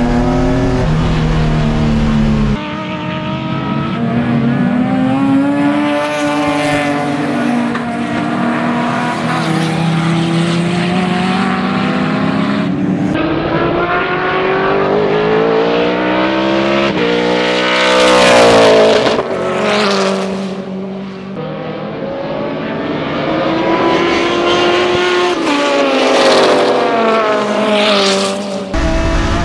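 Race car engine heard from inside the cockpit at first. Then several race cars run through corners, their engine notes rising and falling with gear changes and lifts. One passes close and loud about 18 seconds in, its pitch falling as it goes by, and another swells up near the end.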